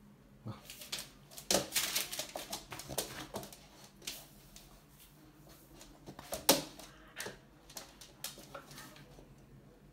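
Dogo Argentino puppy's claws clicking and scrabbling on a laminate floor as it plays, in scattered irregular taps with one sharper knock about six and a half seconds in.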